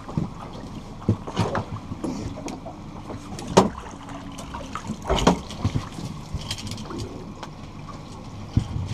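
Water lapping against a small fishing boat, with a few sharp knocks and clatters of gear being handled in the boat, the loudest about three and a half seconds in and another about five seconds in.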